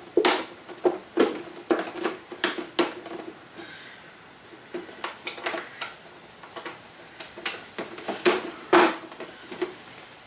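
Irregular clicks, clinks and knocks of hand tools, screws and scooter parts being handled while a Honda Ruckus is reassembled, some strokes sharper and louder than others.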